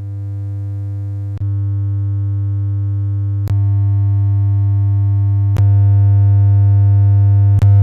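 A steady low triangle-wave tone from a Eurorack synthesizer oscillator, passing through an Instruo Lion pin matrix. It steps up in loudness four times, with a short click at each step as another pin cable is plugged in to add more gain.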